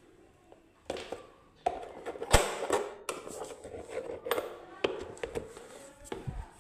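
Irregular knocks and clatter of hard objects being handled, loudest about two seconds in.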